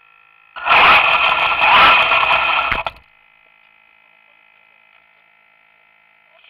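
Radio-controlled toy car driving on rough asphalt: its electric motor whines, rising and falling in pitch, over the noise of its wheels, heard from a camera riding on the car. It cuts off suddenly about three seconds in, leaving only faint steady high-pitched tones.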